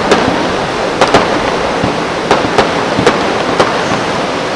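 Fireworks going off: about eight sharp cracks at uneven intervals over a steady rushing noise.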